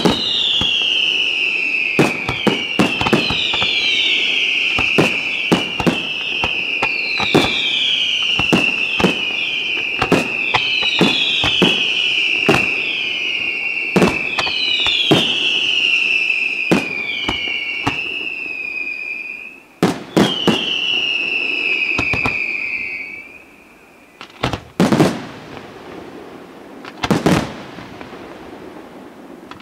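Fireworks display: a continuous string of whistling fireworks, each whistle falling in pitch over about a second and overlapping the next, with sharp shell bursts cracking throughout. The whistles stop a little over 20 seconds in, leaving a few separate loud bangs near the end.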